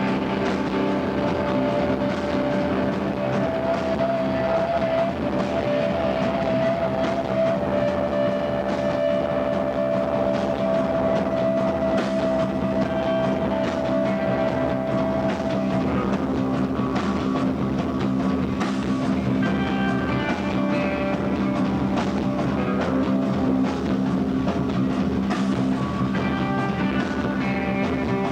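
Live rock band playing: distorted electric guitars holding long notes over a drum kit, steady and loud throughout.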